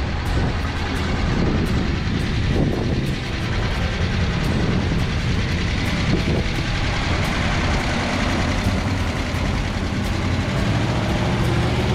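1947 Ford pickup's flathead V8 running steadily.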